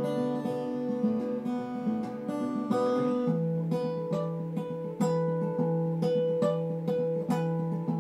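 Acoustic guitar playing an instrumental passage of picked and strummed chords, changing chord about three seconds in and then repeating evenly plucked notes.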